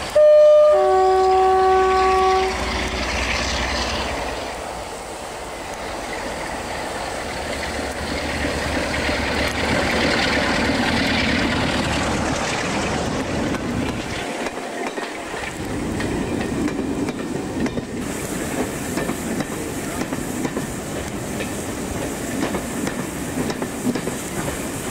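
British Rail Class 47 diesel locomotive sounding its two-tone horn: a short high note, then a longer low one. The locomotive's Sulzer twelve-cylinder diesel engine then runs under power as it passes close by, followed by its coaches rolling over the rail joints.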